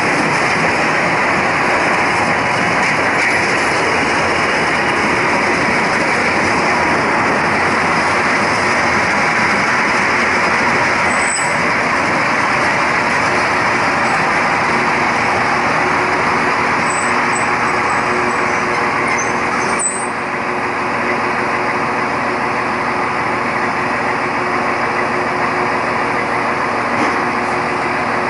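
Narrow-gauge diesel railcar under way: steady engine and running noise of the wheels on the rails, dropping slightly about twenty seconds in. A few faint high squeaks come shortly before the drop.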